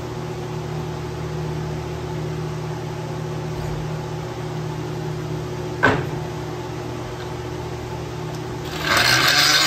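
A power-tool motor runs steadily. There is a single knock about six seconds in. Near the end a grinder starts cutting the spinning rubber balloon tire on the lathe, and a louder, rough grinding noise joins the hum.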